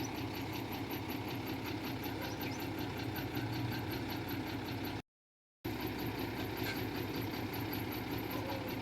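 Heavy diesel engine of earthmoving or dump-truck equipment running steadily at low revs. The sound cuts out completely for about half a second around five seconds in, then resumes unchanged.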